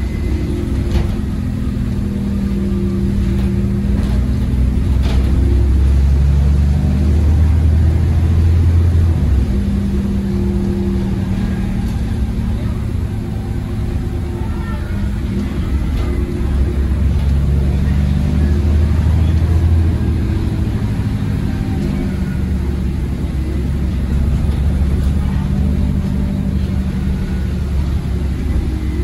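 Bus diesel engine heard from inside the passenger saloon, pulling the bus along through its automatic gearbox. The engine note builds and then drops back at gear changes, about a third of the way in and again about two-thirds through, over steady road and tyre rumble.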